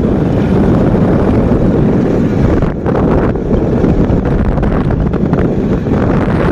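Loud wind buffeting the microphone, a steady low rumble with no engine tone, with two brief dips about a third of a second in and near three seconds in.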